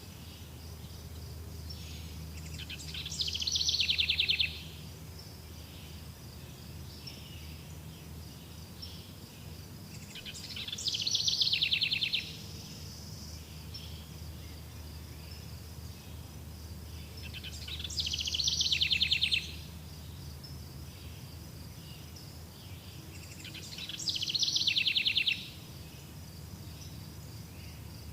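A songbird repeating the same short song four times, about every seven seconds; each phrase swells into a fast trill and stops abruptly. Underneath, a faint steady high insect chirring and a low background rumble.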